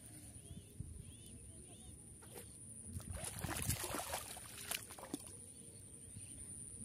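Hands and feet splashing and squelching in shallow muddy water while groping for a fish, in scattered small splashes with a busier stretch about three to four seconds in. A steady high-pitched whine sits behind it.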